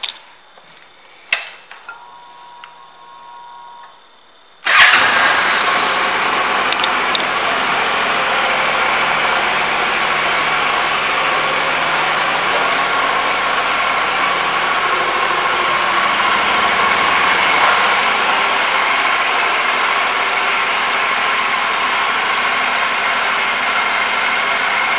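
2014 Honda NC700X's 670 cc parallel-twin engine starting about five seconds in, after a click and a faint steady whine, then idling steadily.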